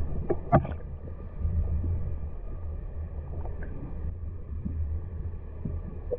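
Muffled pond water picked up by a submerged camera: a steady low rumble, with a few short clicks and knocks in the first second.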